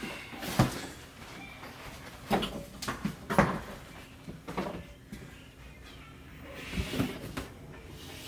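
Several separate knocks and clunks, like a cupboard door being opened and shut and things being handled.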